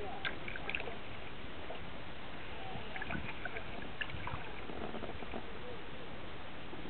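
Kayak being paddled on calm water: soft splashing and dripping of the paddle and water against the hull over a steady background hiss, with a few light ticks.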